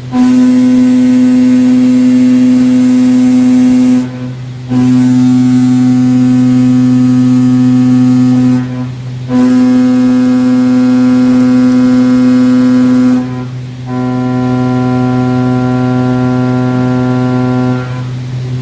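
Cutting tool chattering in 6061 aluminium: a loud, steady, horn-like tone held for about four seconds at a time, four times, with short breaks between, over the machine's constant lower hum.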